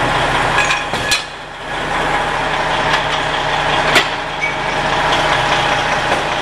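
Semi truck's engine idling, a steady low hum, with a few sharp clicks about one, three and four seconds in.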